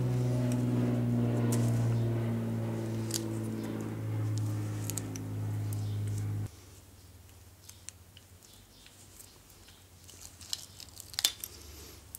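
A steady machine hum that cuts off suddenly about six and a half seconds in, followed by faint clicks and rustles of a tyre plug insertion tool and a sticky vulcanizing repair strip being handled, with one sharp click near the end.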